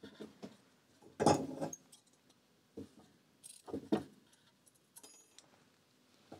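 Small brass sewing keys clinking and knocking against a bookbinder's sewing frame as it is set up, in a few separate bursts of handling noise, the loudest about a second in.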